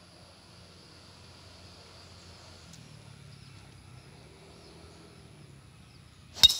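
Golf club striking a teed-up ball on a tee shot: one sharp, loud crack near the end, after several seconds of faint steady outdoor background.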